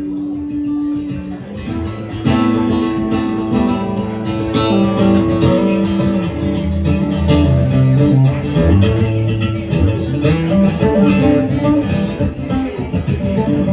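Live band playing an instrumental break, a guitar leading over bass, with no singing; the band gets louder about two seconds in.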